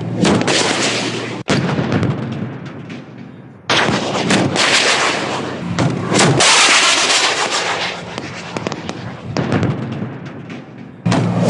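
Live-fire weapons fire from armoured vehicles' guns and shells exploding on impact: a series of loud, sudden blasts with rumble trailing after them, several ending abruptly.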